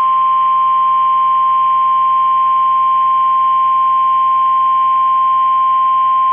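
NOAA Weather Radio 1050 Hz warning alarm tone: a single loud, steady high tone, received over the radio with faint hiss and hum beneath it. It signals that a warning message follows.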